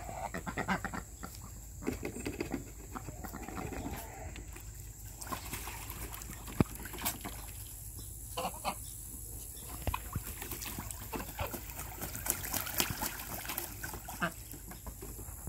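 Domestic geese and ducks giving scattered short calls and clucks, with water splashing and dribbling in a plastic paddling pool as a goose bathes.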